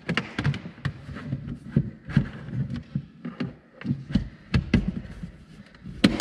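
Irregular taps, clicks and thuds of car trim parts being handled and fitted back into place, about one to three knocks a second with short gaps.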